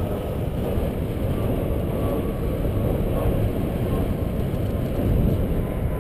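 Steady low rumble of wind buffeting the microphone on a moving bicycle.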